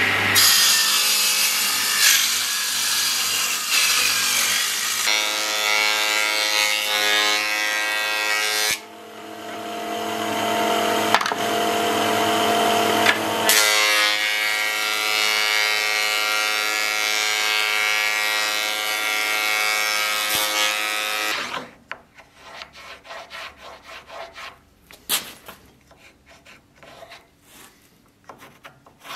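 Table saw running and ripping a pine board, a steady pitched motor whine under loud cutting noise, which eases off briefly about nine seconds in before cutting resumes. The saw stops about 21 seconds in, leaving quieter knocks and scraping of wood being handled.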